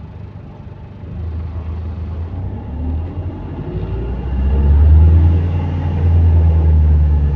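Diesel engine of a double-deck bus running under load: a low rumble that builds about a second in and grows loud from about four seconds, with faint rising tones over it as it picks up speed. The bus has an exhaust leak.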